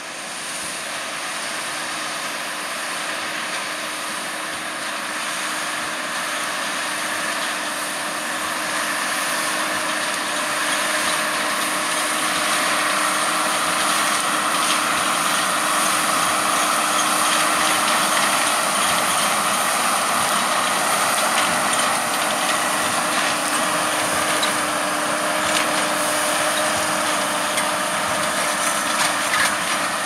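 JCB Fastrac 4220 tractor's engine running under load as it pulls a Krone BiGPack 1290 HDP big square baler through straw, with the baler's drive working. A steady hum that grows louder as the outfit comes closer, then holds level.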